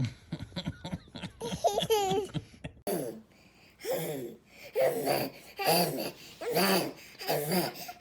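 A baby making spluttering, raspberry-like 'poopy' mouth noises, then laughing in a string of short bursts about once a second.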